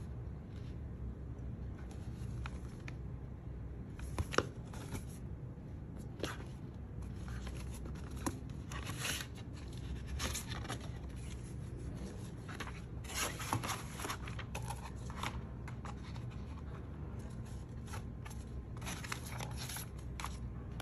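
Cardboard packaging and a paper leaflet of an Apple Watch band being handled: irregular rustling, sliding and light taps as the card sleeve is opened and the leaflet is flipped, with one sharper tap about four seconds in.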